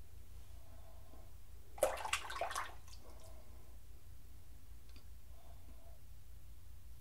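Open-comb double-edge safety razor shaving several days' beard growth with faint scraping strokes. About two seconds in, a short burst of clicking and splashing is the loudest sound.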